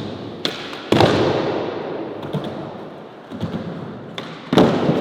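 Skateboard trick: a couple of sharp clacks, then a loud slap of the board landing about a second in, with the wheels rolling away after it. Another loud board slap comes near the end.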